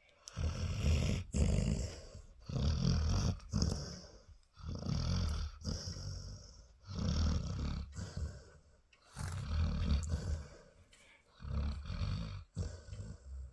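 Sleeping Labrador retriever snoring, about six rough snores coming regularly, roughly two seconds apart.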